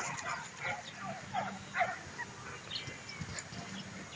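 Dutch Shepherd puppies yipping and whimpering faintly, with short high cries scattered through the few seconds.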